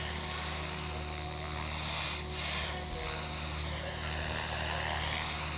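Radio-controlled model helicopter flying low, its rotor running with a steady low hum and a steady high whine that wavers briefly midway.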